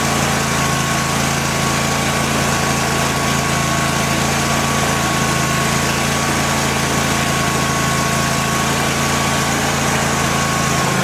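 Kohler lawn mower engine running steadily, with a thin steady high tone over it, and cutting off right at the end. Its charging system is working again: the alternator under the freshly re-glued flywheel magnets is putting out about 43 volts.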